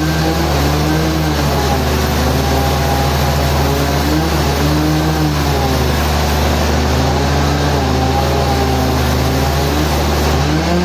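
Sawmill machinery running loud and steady, an engine or motor whose pitch slowly rises and falls every second or two as the load changes.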